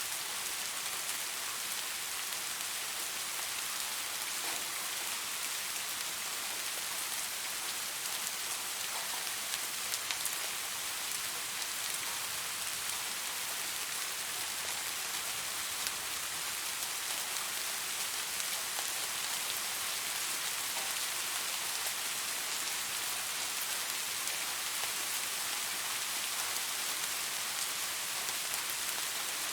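Steady rainfall, an even hiss of rain with many fine drop ticks close together.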